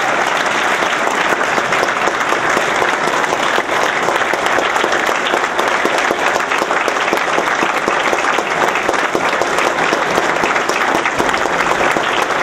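An audience applauding: a dense, steady clatter of many hands clapping that holds an even level throughout.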